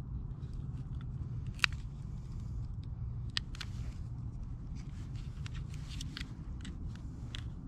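Hands working at a small plastic packet and dry twigs make scattered light crackles and clicks, the loudest a single sharp click about one and a half seconds in, over a steady low rumble.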